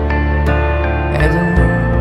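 Music: an instrumental stretch of a song, long held notes over a steady bass.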